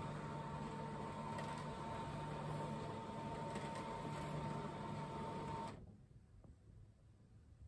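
Motorized roller blind lowering: a steady electric motor hum with a thin high whine, which cuts off abruptly about six seconds in as the blind stops.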